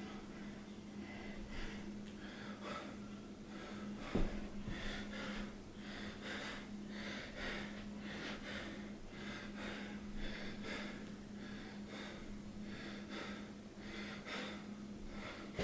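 A person breathing heavily and fast, about two breaths a second, laboured by illness and exertion. A single knock comes about four seconds in, over a steady low hum.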